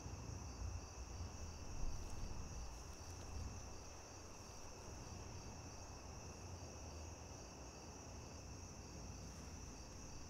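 A steady chorus of crickets trilling continuously, over a low background rumble.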